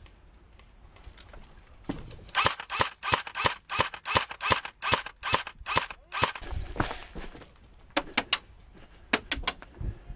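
Airsoft rifle firing a rapid string of single shots, about four a second, for some four seconds starting about two seconds in; a few more quick shots, some in pairs, follow near the end.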